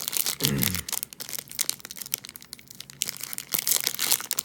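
Foil wrapper of a trading-card pack crinkling and tearing as it is opened by hand, a run of sharp crackles.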